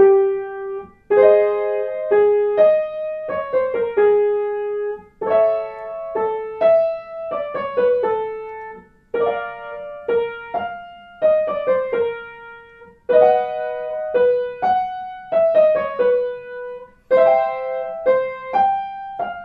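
Piano accompaniment for a singing warmup exercise. A short phrase of notes is played about every four seconds, and each repeat is a half step higher than the last.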